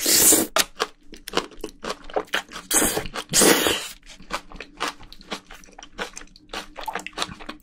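Close-miked eating of spicy braised bean sprouts: a loud slurp of a mouthful at the start and two more loud slurps around three seconds in. Between and after them come many short crunching chews of the crisp sprouts.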